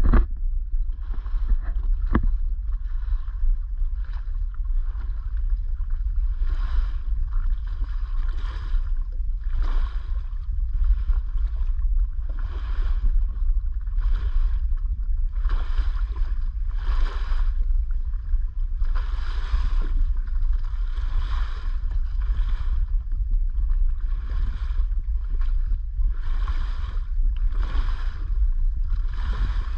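Wind buffeting the microphone under a steady low rumble, with water washing against a boat's hull in hissing surges every second or two.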